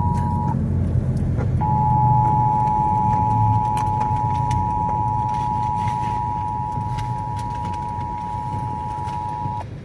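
Emergency Alert System attention signal: two steady tones just under 1 kHz sounding together. It breaks off about half a second in, comes back a second later and holds until it cuts off near the end, over a low rumble.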